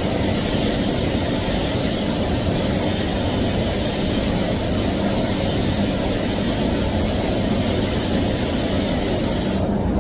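Compressed-air gravity-feed paint spray gun hissing steadily as it sprays, cutting off suddenly near the end when the trigger is released. Under it runs the steady rumble of the spray booth's ventilation.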